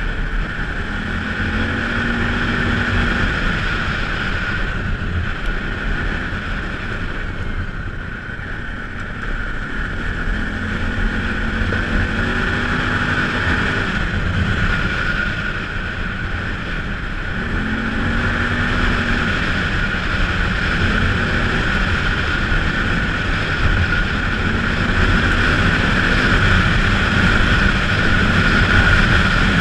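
Polaris Sportsman ACE 570 engine running under way, revving up and easing off again and again, with wind on the microphone.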